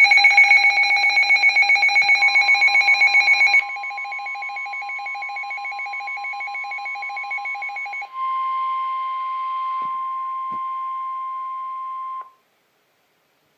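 Emergency alert tones: a rapidly pulsing, ringing alarm tone for about the first eight seconds, loudest for the first three and a half. A steady single-pitched alert tone comes in about two seconds in, then sounds alone and louder until it cuts off about twelve seconds in.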